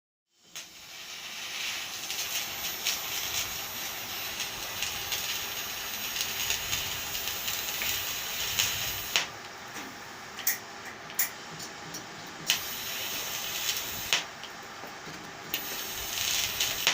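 TIG welding arc hissing steadily, starting about half a second in, with a few sharp crackles in the second half.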